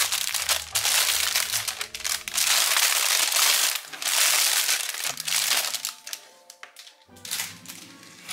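Clear plastic wrapping crinkling as it is pulled off and handled, dense and loud for about the first five seconds, then quieter and patchier. Soft music plays underneath.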